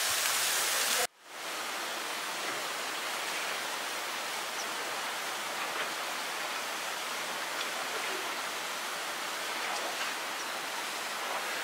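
Rushing water of a small waterfall splashing into a rocky pool. About a second in it cuts off abruptly, and a quieter, even rushing hiss carries on.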